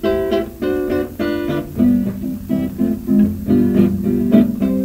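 Background music: an acoustic guitar playing a quick, bouncy blues intro of plucked notes, with no voice.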